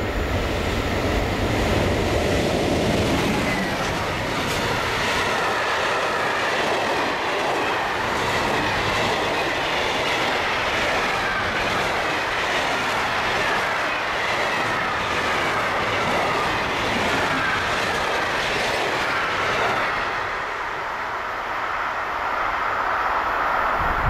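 A train passing close by on the track: a steady rumble of wheels on rail with rapid clattering over the rail joints, and whining tones that slide in pitch.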